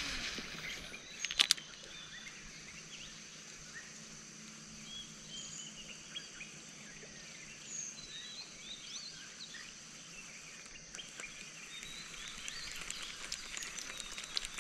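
Open-air ambience: birds chirping here and there over a steady high-pitched drone, with a pair of sharp clicks about a second and a half in.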